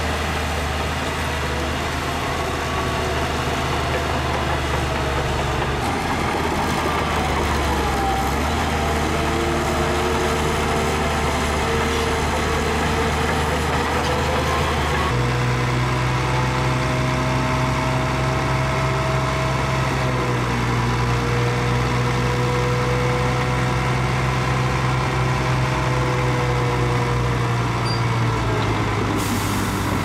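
Heavy diesel engine of earthmoving machinery running steadily under load. Its note rises about halfway through, and thin wavering whines run over it.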